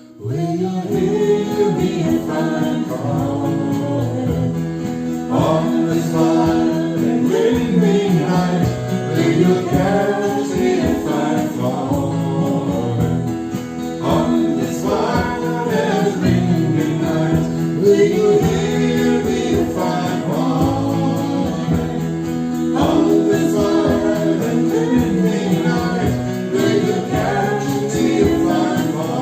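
Folk song: singing over a steady instrumental backing of held low notes, coming in loudly right at the start.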